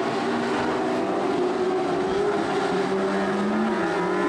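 A pack of Lightning Sprint cars racing, several engines running hard at once with a steady, high-revving drone whose pitch shifts only slightly.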